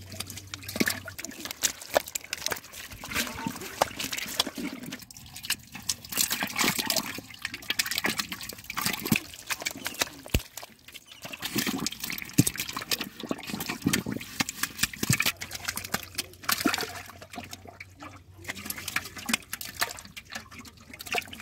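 Catfish thrashing and sliding through shallow muddy water, with irregular splashes, wet slaps and trickling water.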